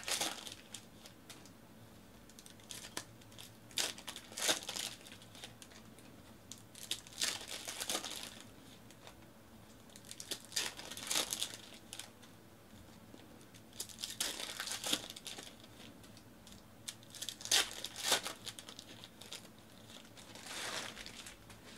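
Foil trading-card packs of 2019 Panini Certified football being torn open and crinkled, one after another, in crackly bursts about every three to four seconds.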